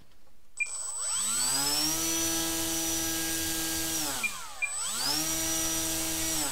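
Small brushless electric motor spinning a 7x3.5 propeller on a bench run: it is throttled up from rest to a steady high whine, throttled back almost to a stop about four and a half seconds in, then run up again and held before dropping off at the end. A few short beeps sound over it.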